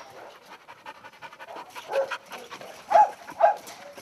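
Kenneled dogs barking: three short barks, one about two seconds in and two close together near the end.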